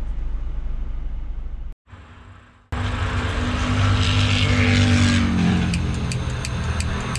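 Highway traffic passing close by: a steady road rumble, with one vehicle's engine note rising and then falling in pitch as it goes past about five seconds in. Before this, a low steady hum ends in a sudden cut with about a second of near silence. A few light clicks come near the end.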